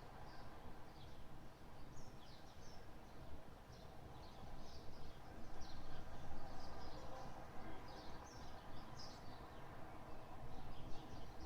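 Small birds chirping again and again, short high calls scattered all through, over a steady low outdoor rumble.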